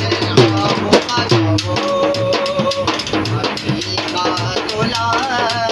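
A man singing a qawwali with long, wavering held notes, accompanying himself on a small steel-shelled hand drum beaten in a steady, quick rhythm.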